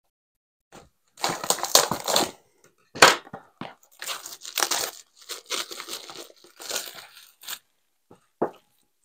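Packaging of a diamond-painting kit being opened: plastic wrap and cardboard crinkling and rustling in irregular bursts, with a short knock near the end.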